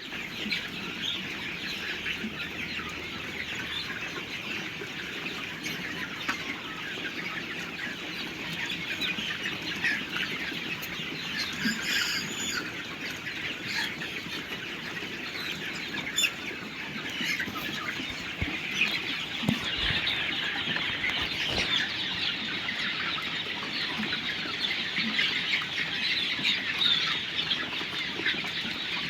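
A large flock of Sonali chickens clucking and calling all at once, a dense, unbroken chatter of many birds that grows a little louder in the second half.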